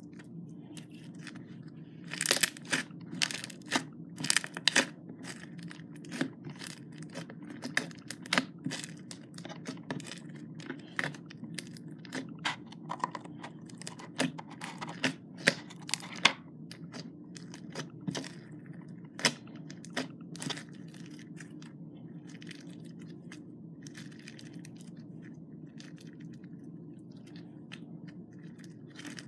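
Pink crackle slime made with beads being stretched, squeezed and pressed by hand, the beads giving irregular crackling pops and clicks. The crackling is dense for most of the time and thins out to a few faint pops near the end.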